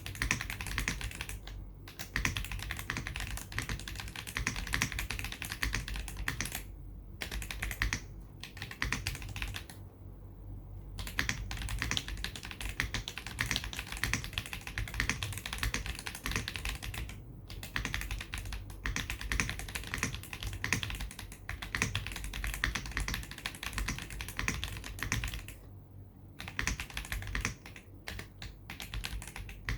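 Continuous fast typing on a mechanical keyboard with heavy tactile switches, dense runs of sharp clacky keystrokes broken by a few short pauses.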